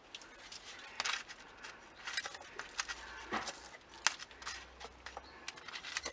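Soil being scraped and poked out of a small plastic pot around an air-layered branch with fingers and a thin stick: irregular scratching, rustling and small clicks.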